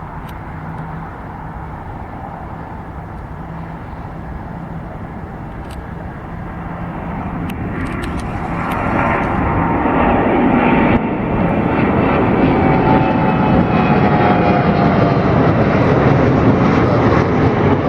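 Jet airliner engines, growing louder about halfway through and then holding loud, with a whine that slowly falls in pitch.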